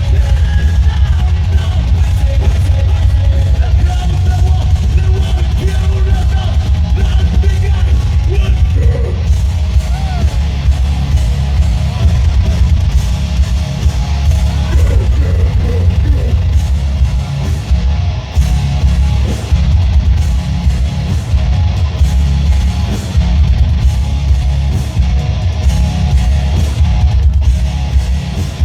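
Loud live rock band music with guitar, heavy bass and some singing.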